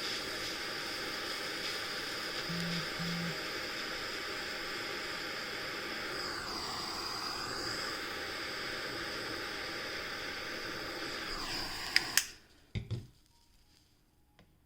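Gas soldering torch flame hissing steadily, its pitch dipping briefly partway through, then cut off suddenly with a click near the end, followed by a few small clicks.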